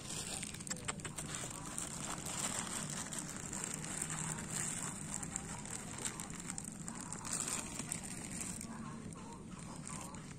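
A thin plastic bag of dry cat food crinkling as kibble is shaken out onto asphalt, with many small crackles and clicks, over a steady high hiss.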